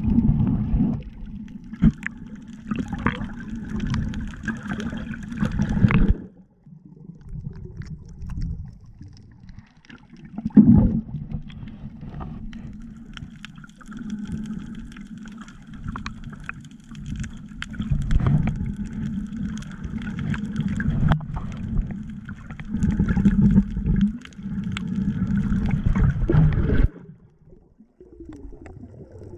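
Muffled water noise heard through an action camera held underwater: a low rumble with sloshing and gurgling. It drops away for a few seconds about six seconds in, and again near the end.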